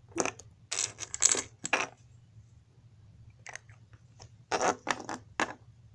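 Small hard clicks and clatters as a plastic Shopkins figure is dropped into a miniature toy can and the lid goes on, then more clicks as the can is picked up and set down again, in two clusters.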